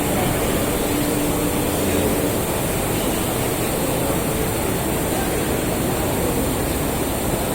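Steady din of a machine-tool exhibition hall, machinery running amid general hall noise, with a faint steady hum in the first couple of seconds.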